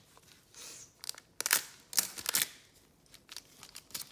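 Trading cards being handled and slid over one another: a run of short flicks and scrapes, loudest about one and a half to two and a half seconds in.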